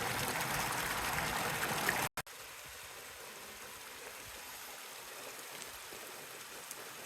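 Mountain stream water rushing through culvert pipes under a road, a steady rush. About two seconds in it cuts off abruptly and gives way to a quieter, steady stream flow.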